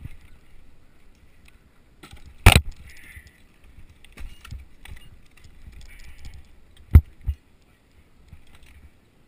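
Climbing spurs (gaffs) kicking into the bark of a dead pine trunk, giving sharp knocks about two and a half seconds in and a quick pair near the end. Metal climbing hardware jingles and rustles between the knocks.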